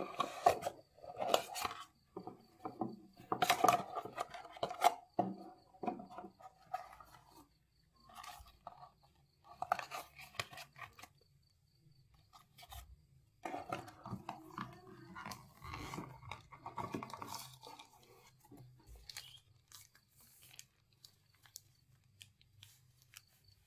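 Packaging being handled and opened: irregular bursts of rustling, crinkling and tearing with small clicks, broken by short pauses.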